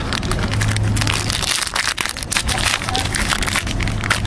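Foil trading-card pack wrapper crinkling and crackling as it is handled, a dense run of small crackles over a steady low hum.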